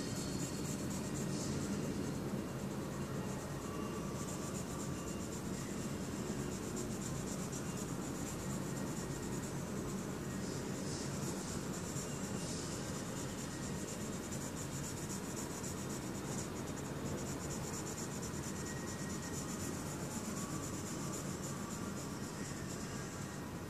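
Colouring in on paper: a drawing tool scratching and rubbing back and forth in steady strokes, over a steady low hum.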